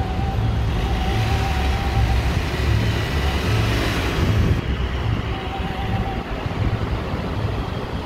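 City street traffic: car engine and tyre noise with a low, uneven rumble, swelling as a vehicle passes about four seconds in.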